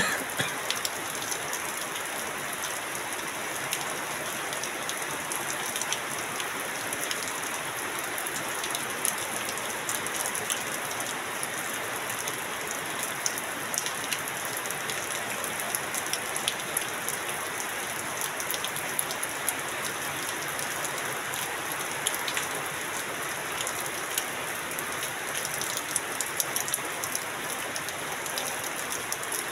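Heavy rain falling steadily, with water streaming off the edge of a corrugated metal roof. Many sharp drop hits sound through the steady hiss.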